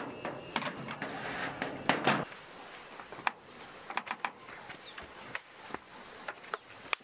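Irregular light clicks and knocks over a faint hiss that quietens about two seconds in.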